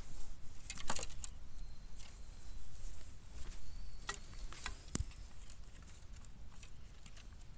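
Bamboo burning in a fire, crackling with scattered sharp pops: a quick cluster about a second in and single pops around four and five seconds in, over a low, steady rumble.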